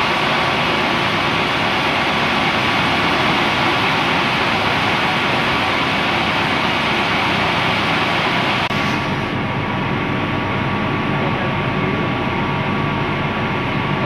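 Girbau commercial washer-extractor running at high spin speed: the electric motor and V-belt drive turn the drum with a steady mechanical running noise, its motor and drum-shaft bearings newly replaced. About nine seconds in the sound turns duller and deeper.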